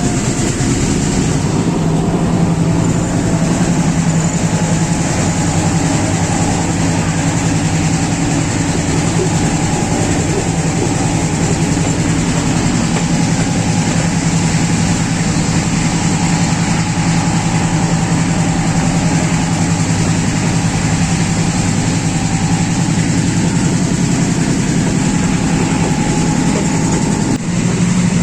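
Class M6 diesel-electric locomotive engine running loud and steady under power, with a constant low drone.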